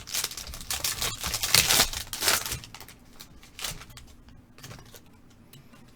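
A trading-card pack wrapper being torn open and crinkled by hand. There is a few seconds of rustling, loudest in the first two and a half seconds, then a few quieter rustles.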